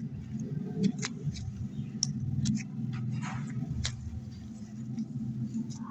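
Slime being squeezed and stretched by hand, making irregular sticky clicks and small wet pops, with a brief squelch about three seconds in.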